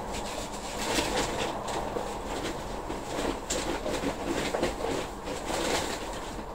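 Rustling, scraping and light knocks of hands working potting compost into plastic pots while planting seedlings.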